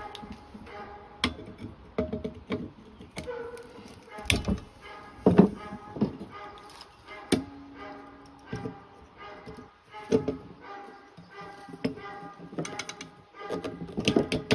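Background music, with a few sharp metallic clicks and knocks from hand tools setting rivets through a woven brake lining into a steel brake band. The loudest knocks come around the middle.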